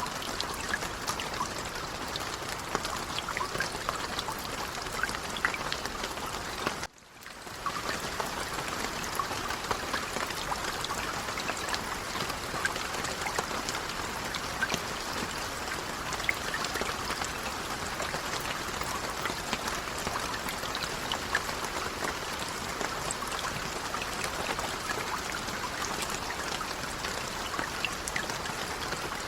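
Light rain falling steadily, a fine patter of many small drops with a hiss. About seven seconds in it drops out for a moment, then resumes.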